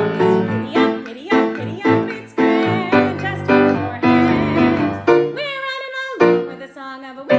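A song with a singing voice over piano accompaniment; the voice sings with vibrato and holds one long note about five seconds in that slides down at its end.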